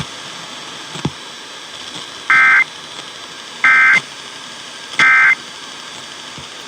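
Emergency Alert System end-of-message code: three short bursts of warbling data tones about 1.3 seconds apart, marking the close of the alert, over a faint steady hiss.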